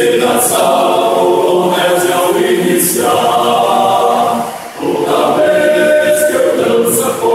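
Men's choir singing a cappella in several parts, with a short breath pause a little past halfway before the next phrase.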